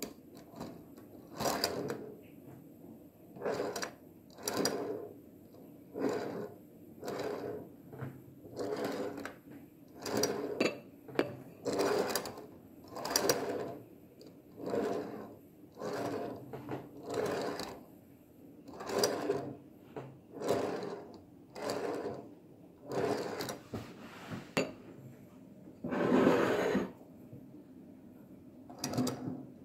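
Scratch-built HO-scale brass decapod locomotive chassis run back and forth on the track, its driving wheels and new side rods giving a short whirring mechanical rattle about once a second, some twenty times. The longest and loudest run comes near the end. This is the side rods being tried out to see that the drivers turn freely.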